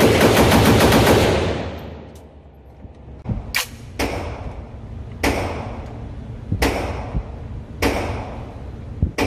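Gunfire at an indoor shooting range: a rapid string of rifle shots, about eight a second, stops about a second in. Single shots follow every second or so, each with a short echo off the range walls.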